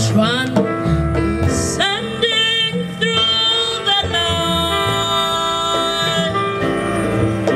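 Live jazz band playing: grand piano and double bass, with a melody sung above them and notes held and bent.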